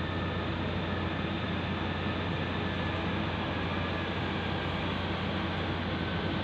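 Steady road and engine noise from vehicles around the construction site, including a large truck running, with a constant low hum underneath.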